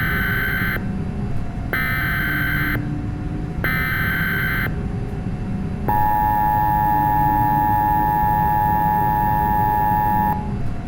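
Mock Emergency Alert System tones: three short warbling data bursts of the digital header, about two seconds apart, then the steady two-note attention signal for about four and a half seconds, announcing a new alert. A low steady rumble runs underneath.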